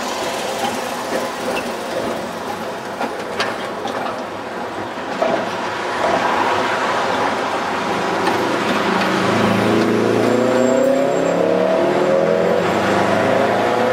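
BKV type UV trams running on street track: the rumble of a passing set, with a few sharp clicks and knocks from the wheels and rails. In the second half a second UV tram comes closer, and its motor whine rises steadily in pitch and loudness.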